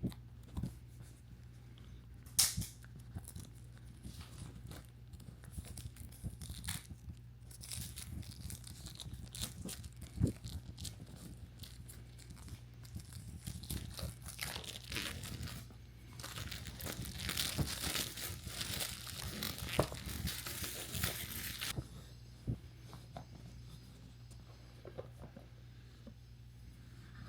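Packaging being torn and crinkled by hand while a card deck is unboxed, with scattered clicks and rustles of handling. A longer run of continuous tearing and crinkling builds past the middle and stops suddenly about three-quarters of the way in.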